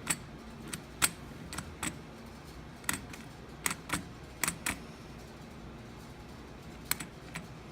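Irregular light clicks and taps, about a dozen spread unevenly with a gap in the middle, from handling the Schlage KN150 electronic keypad lock.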